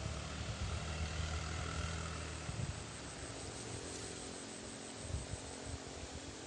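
Small motorbike engine running steadily as it rides along a dirt path. Its low hum is plain for the first couple of seconds, then fades.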